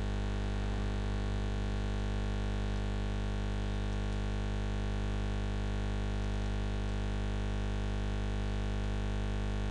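Steady electrical mains hum and buzz, a stack of many even tones that does not change.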